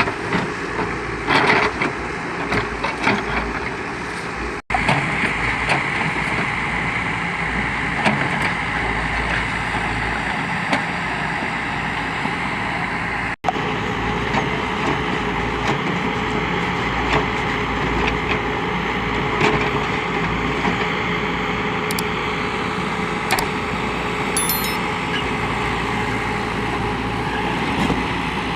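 Backhoe loader's diesel engine running steadily under work, with a few scattered knocks; the sound cuts out for an instant twice.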